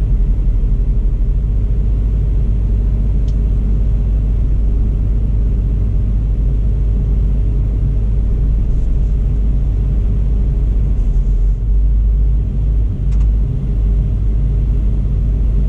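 Volvo excavator's diesel engine running steadily, a deep even rumble heard from inside the operator's cab.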